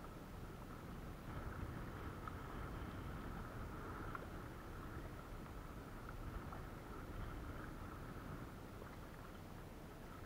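Faint outdoor noise of wind and water around a kayak, with a faint steady high hum and a few small ticks.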